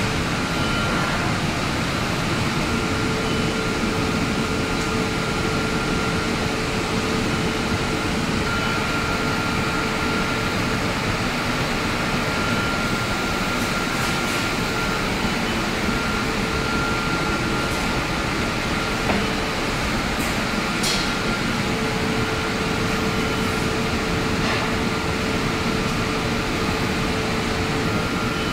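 Steady hum and rush of air-handling machinery, with a steady mid-pitched whine and a fainter higher tone that comes and goes, and a few light clicks.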